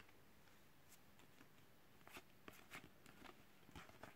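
Near silence, with a few faint clicks and ticks of trading cards being handled and slid over one another from about two seconds in.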